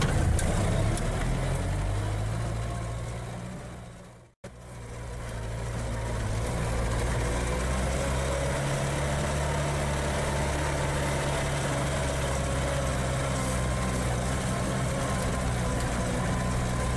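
Land Rover engine running steadily, heard from inside the cabin on a rough mountain track. About four seconds in, the sound briefly fades to silence and comes back up.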